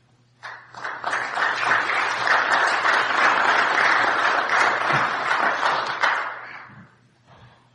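Audience applauding, a dense patter of many hands clapping that starts about half a second in and dies away about six to seven seconds in.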